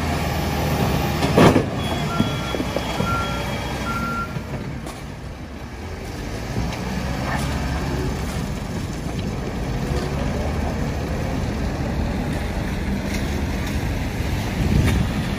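Heavy truck engine rumbling, with its reversing alarm giving three short beeps a few seconds in. A sharp bang comes shortly before the beeps.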